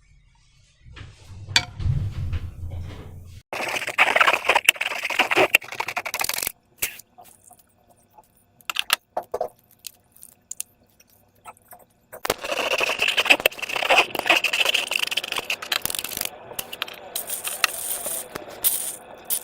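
Slime and balloons being squished and handled: two long stretches of dense wet crackling and clicking, with scattered clicks between them.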